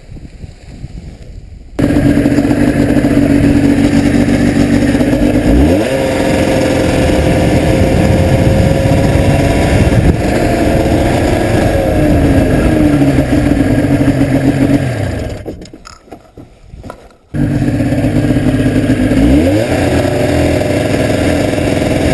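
Paramotor engine and propeller running at high throttle, its pitch rising a couple of times as the throttle opens. It cuts in suddenly about two seconds in, falls away for a second or two about three-quarters of the way through, then comes back just as suddenly; before it, only wind on the microphone.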